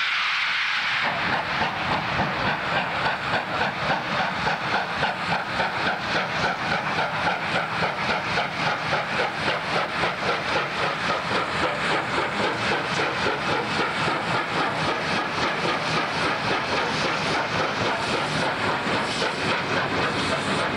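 Streamlined C38 class Pacific steam locomotive 3801 getting under way: a hiss of steam for about the first second, then a steady exhaust beat of about three chuffs a second with steam hissing through it.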